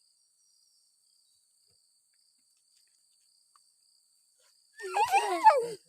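Faint steady chirring of crickets, then near the end a loud wavering cry about a second long.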